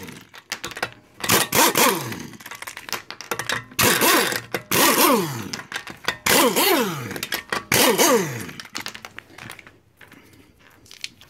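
Air impact wrench spinning off a car's wheel bolts in about four short bursts, its pitch falling at the end of each burst.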